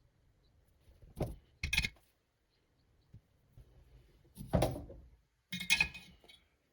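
Small tools and parts being handled on a workbench: four short clatters and knocks, two close together about a second in, then two longer scraping ones in the second half, with quiet between.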